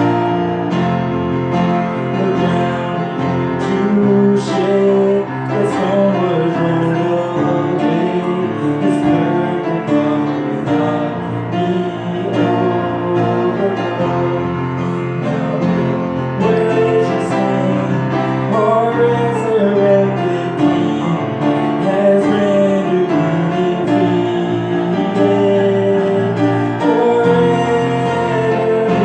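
Music: a song with piano and a singing voice, playing without a break.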